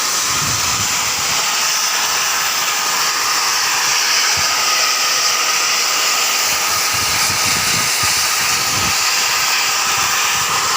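High-pressure steam venting from an AAC block autoclave: a loud, steady hiss with a faint whistling tone in it.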